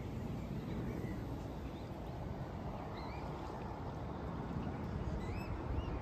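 Pond ambience: a steady low noise with faint, short rising bird calls about once a second, more often near the end.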